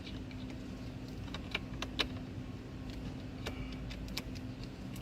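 Sharp plastic clicks and small taps as wiring connectors are snapped onto a replacement Honda Accord ignition switch, about half a dozen of them, the loudest about two seconds in and at the very end, over a steady low hum.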